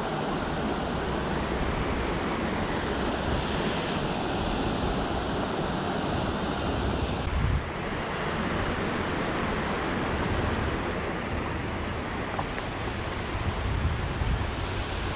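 Steady rush of a shallow mountain stream running over stones, with low wind rumble on the microphone growing near the end.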